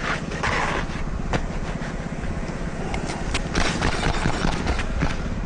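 A motor runs steadily underneath roofing work, with a few sharp clicks and several short hissing bursts.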